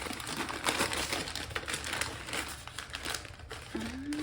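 Packaging bag crinkling and rustling in irregular bursts as the folded window screen mesh is worked out of it.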